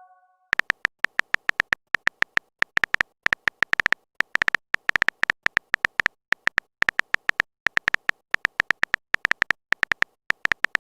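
Smartphone on-screen keyboard tapping sound effect: a long run of short, sharp key clicks in quick, irregular bursts, as of a chat message being typed.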